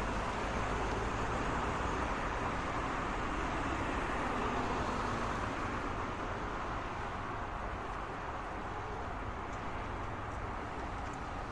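Road traffic noise: a steady wash of tyre and engine sound from passing cars, easing off slightly about halfway through.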